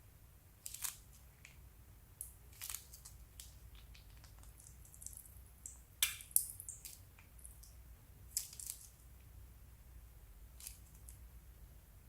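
Plastic piping bags and slime being handled, giving scattered sharp, high-pitched crackles and clicks. The loudest cluster comes about six seconds in.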